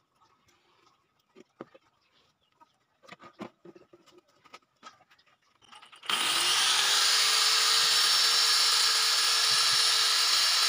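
Faint taps and handling of a plastic bottle, then about six seconds in an angle grinder is switched on, spins up with a rising whine and runs freely at a steady high pitch.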